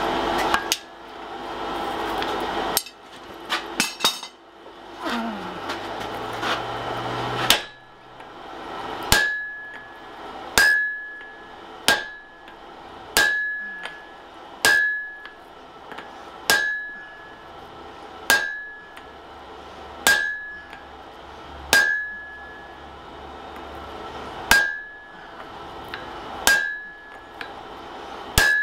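Hand hammer striking a handled hot chisel driven into a red-hot wrought-iron hammer blank on the anvil, about one blow every one and a half to two seconds, each with a short metallic ring. The blows begin about seven seconds in, after a few scattered knocks and noise.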